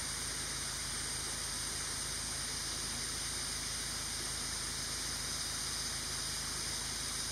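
Steady high-pitched hiss.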